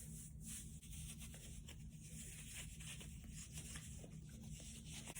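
Faint rubbing and scattered soft crackles of a squishy sand-filled fidget toy being squeezed and handled, over a steady hiss.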